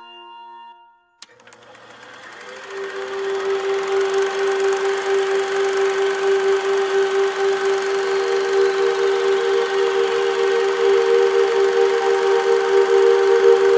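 Logo intro soundtrack. A fanfare's last held chord fades out, and after a short gap and a click, a hissing, whirring sound effect swells up under one steady droning note. A second held note joins it about two-thirds of the way through.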